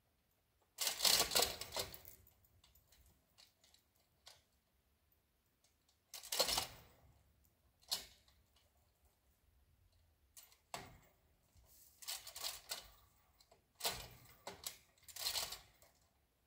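A 2-ton chain fall worked by hand: the hand chain rattles and the hoist clicks in irregular bursts of about a second, several times over, as it takes up tension on the strap pulling the leaning maple.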